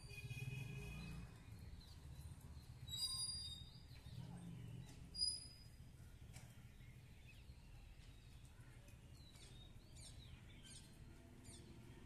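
Faint background noise with scattered high-pitched animal chirps and short calls, and a run of quick falling chirps in the second half. A brief high ring about five seconds in is the loudest sound.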